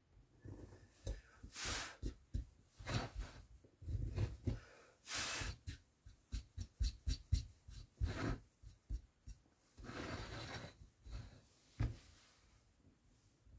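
Small V-shaped wood-carving gouge cutting into wood by hand as the cuts are deepened. Short irregular cuts, ticks and light knocks, with a few longer scraping strokes of about a second each.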